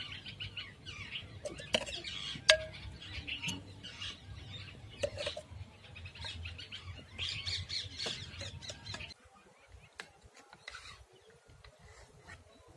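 Many birds chirping and calling over a steady low rumble, with two sharp clicks a couple of seconds in. About nine seconds in the rumble cuts out suddenly, leaving fainter, scattered chirps.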